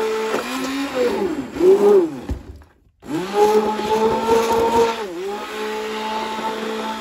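Hand-held immersion (stick) blender motor running in a bowl of soap pieces and hot water, its steady whine dipping in pitch and recovering several times as it churns the soap. It cuts out for about half a second near the middle and starts up again.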